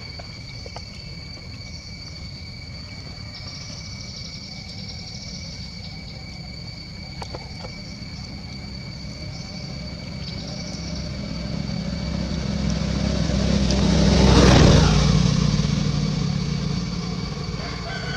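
A motor vehicle passes by: a low engine rumble swells to a peak about fourteen seconds in, then fades away. A steady high-pitched whine runs underneath.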